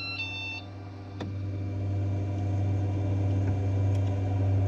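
A short electronic beep from the Flashforge Dreamer NX 3D printer's controls, then the printer's steady low hum, which grows louder over the next second or two. It follows the command to unload the filament.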